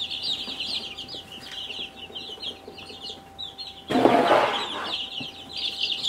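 A brood of about fifty young chicks peeping continuously. About four seconds in, a loud rush of wood shavings as a scoopful is dug up and poured into the brooder.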